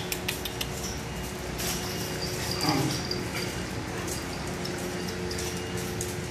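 Several dogs milling about on a tiled floor, claws clicking on the tiles, with a brief dog whine about two and a half seconds in.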